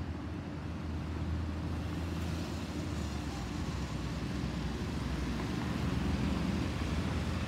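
Distant jet noise from an Airbus A320-214's CFM56-5B turbofan engines: a steady rushing rumble that grows slowly louder as the airliner approaches. A steady low hum runs underneath.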